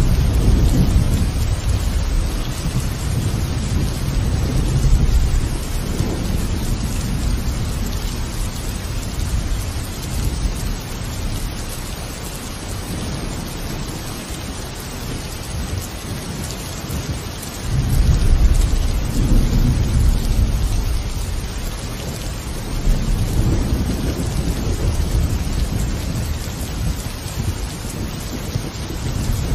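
Steady rain with low rolls of thunder that swell and fade several times, loudest near the start and about two-thirds of the way through.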